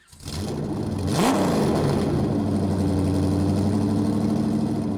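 Moskvich 2140 car engine running, revved once briefly about a second in, its pitch rising and falling back, then running steadily.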